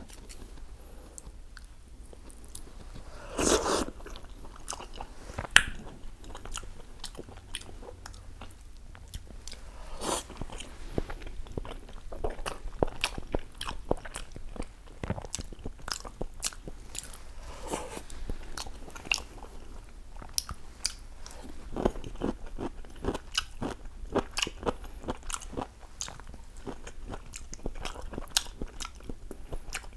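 A person eating ramen close to a clip-on microphone: noodles slurped and chewed, with many small wet mouth clicks and smacks, and one louder, longer sound about three and a half seconds in.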